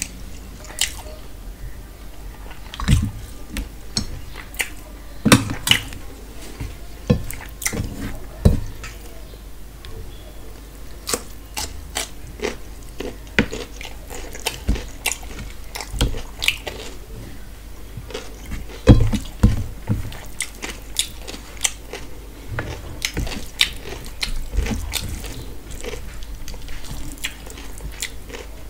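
Eating by hand: irregular clicks and smacks of chewing mouthfuls of rice and mutton curry, with fingers mixing rice and curry on a steel plate. A few louder knocks stand out, around three, five and nineteen seconds in.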